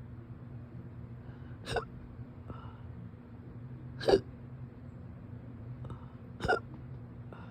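A person hiccuping three times, short sharp hiccups about two and a half seconds apart, part of a persistent bout of hiccups.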